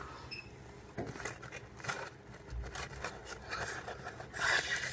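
Cardboard microwave-chip box rubbing and scraping as it is held in the mouth and shaken to tip the chips out onto a plate, with scattered light taps and a louder rustle near the end.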